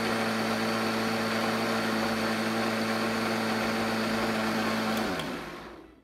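Ninja countertop blender's motor running at full speed, a steady whine, then spinning down with falling pitch about five seconds in.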